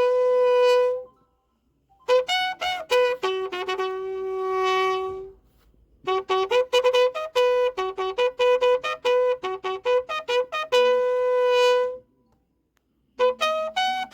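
A solo brass instrument, trumpet-like, playing a call of quick, sharply tongued notes with some long held notes, in three phrases with short silences between.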